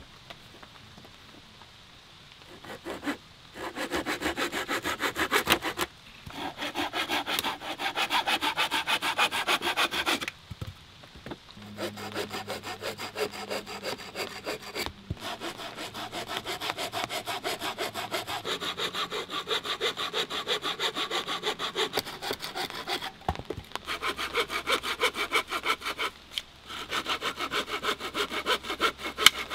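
Hand saw cutting through a bark-on wooden pole with quick, even back-and-forth strokes. The strokes start about three seconds in and come in several runs broken by short pauses.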